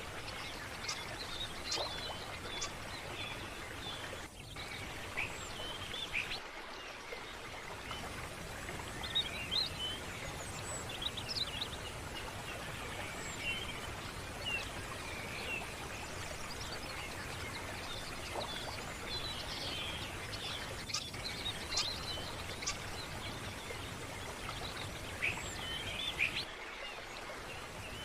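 Small birds chirping and twittering in many short, high calls over the steady rush of running stream water.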